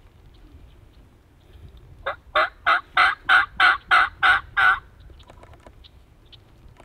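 A series of nine loud turkey hen yelps from a hunter's turkey call, about three a second and close at hand, calling the toms in.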